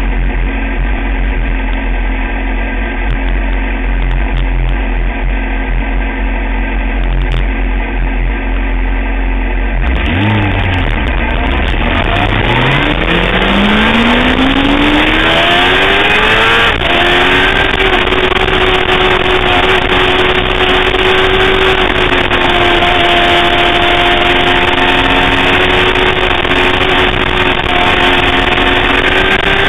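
Sportbike engine running steadily at low revs. About ten seconds in it pulls away, its pitch climbing smoothly for several seconds, then dropping at an upshift and holding at nearly steady revs. Wind rush on the microphone joins once the bike is moving.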